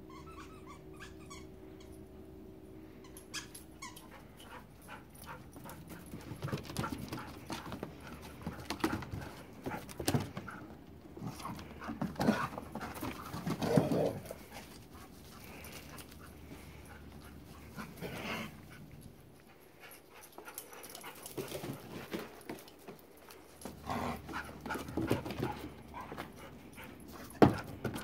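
Two dogs rough-playing, panting and making short vocal sounds in irregular bursts, busiest in the first half and again near the end.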